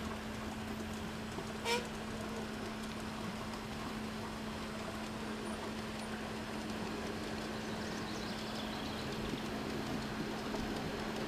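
G-scale model freight train rolling past on garden railway track: a steady rolling noise of its wheels on the rails with a steady low hum, and a single short sharp click about two seconds in.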